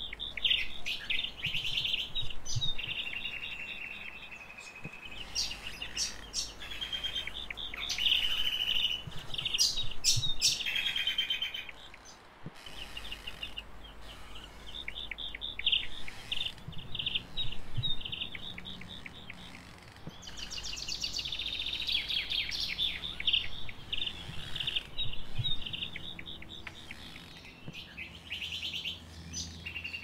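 Small songbirds chirping and trilling, several calling over one another in fast trills of repeated high notes and short sharp calls, busiest about a third of the way in and again past the two-thirds mark.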